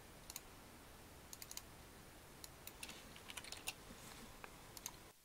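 Faint, scattered clicks of computer keyboard keys and a mouse, a dozen or so short taps in irregular clusters.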